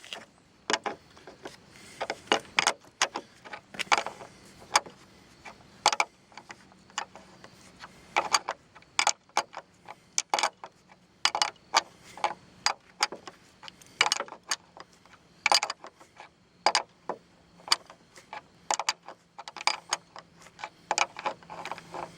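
Irregular sharp metallic clinks and clicks of metal hardware and tools being handled, with a faint steady low hum underneath.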